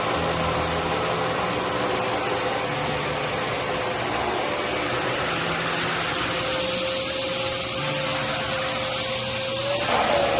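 Vacuum cleaner running steadily: a continuous rushing hiss with a steady whine, whose pitch wavers briefly near the end.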